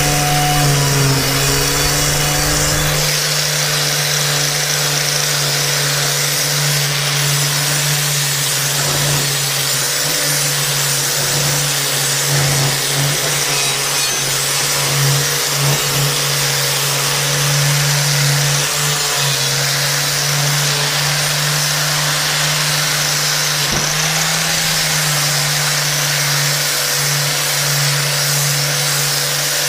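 Corded angle grinder fitted with a wire brush wheel, running steadily while scouring heavy rust off a quarter-inch steel plate: a constant motor hum under a loud, harsh scraping hiss.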